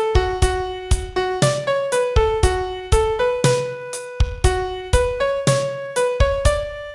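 Piano playing the song's chorus melody one note at a time, each note struck and decaying, with low notes struck underneath on the beats.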